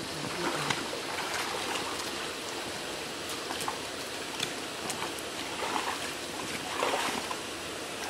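Steady rush of a shallow, rocky stream, with scattered small splashes of rubber boots wading through the water.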